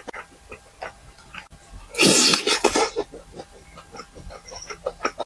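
Close-up eating sounds: chewing and mouth smacks as a continual patter of short clicks, with one loud, noisy burst of slurping or crunching about two seconds in.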